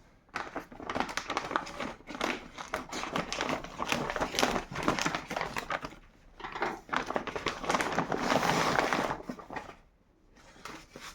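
Plastic packaging crinkling and rustling in bursts as parts are unwrapped and handled, going quiet near the end.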